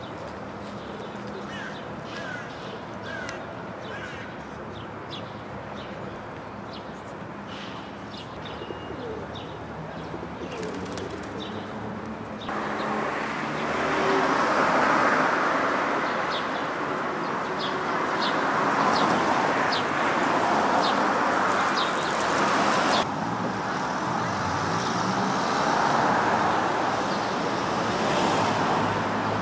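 Outdoor city ambience: birds chirping over a low background hum for about the first twelve seconds. It then switches abruptly to louder, steady road traffic noise from passing cars.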